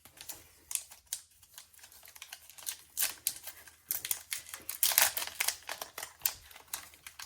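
Foil wrapper of a Pokémon card booster pack crinkling and being torn open: a run of sharp crackles and clicks, sparse at first and busier in the second half.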